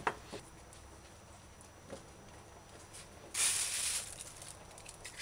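Quiet counter-top food prep: a light knife click on the board, then a short rustling swish about three and a half seconds in as a hand sweeps across the counter.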